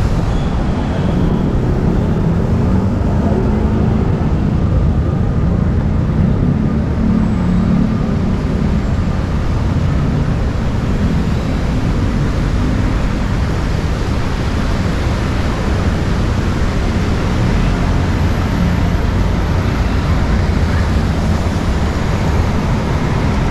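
Steady city road traffic noise: a continuous low rumble of passing vehicles with no single event standing out.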